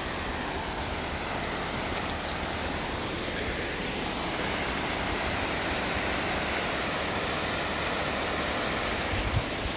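Fast-flowing, peat-brown stream rushing over rocks in a steady wash of white water, with a low thump near the end.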